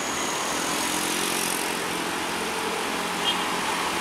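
Slow-moving road traffic, cars and a motorcycle, with their engines running steadily over a hiss of traffic noise. A short high chirp sounds about three seconds in.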